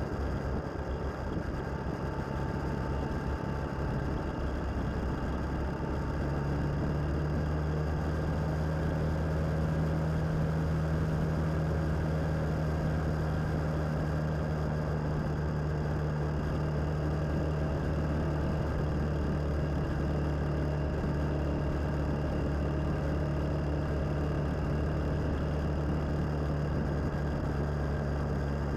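Suzuki DL650 V-Strom's V-twin engine running steadily while the motorcycle is ridden at cruising speed. The engine note rises a little about six seconds in and then holds even.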